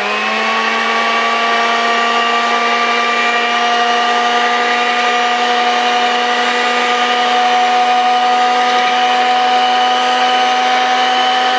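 Small electric hand mixer with a whisk beater running steadily at one speed, whisking a thin liquid in a glass bowl: an even motor whine.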